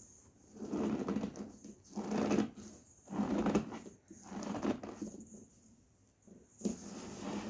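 Cornstarch squeezed by hand, giving squeaky, crunchy squeezes about once a second, five in all, with a short pause shortly after the middle.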